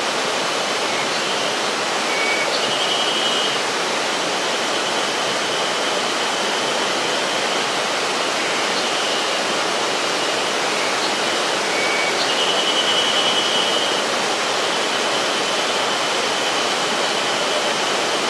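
River water rushing steadily over rocks, a full even rush. A faint high-pitched call rises out of it twice, about ten seconds apart.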